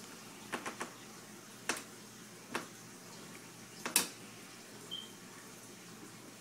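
Aquarium water moving with a steady faint hiss, with several short sharp clicks, a quick run of three about half a second in and the loudest about four seconds in.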